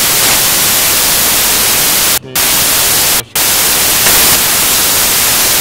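Loud, steady static hiss filling the whole sound track, cutting out briefly twice, about two and three seconds in.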